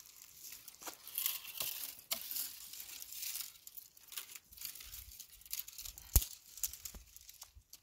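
Dry fallen leaves and twigs crackling and rustling as someone moves through them and handles thin dry branches, with one sharp crack a little after six seconds in.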